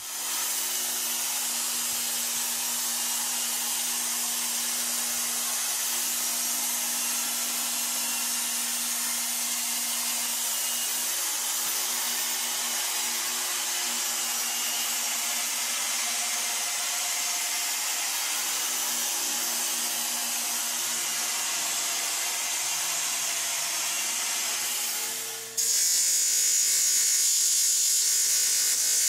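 A band saw runs steadily while its blade cuts through a birch wood handle blank. About 25 seconds in, the sound switches abruptly to a louder bench grinder wheel spinning, with several steady tones, as the wooden handle is ground against it.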